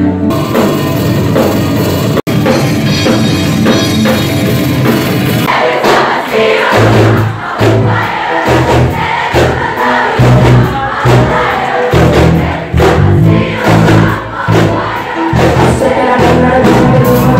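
Live rock band playing loud on stage, with guitars, keyboard and drums and a crowd's voices mixed in; a heavy, pounding bass-drum beat comes in about five seconds in.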